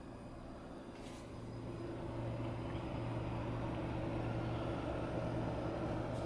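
Custom water-cooled gaming PC running: a steady hum of cooling fans and the coolant pump, with a low droning tone, growing louder about two seconds in.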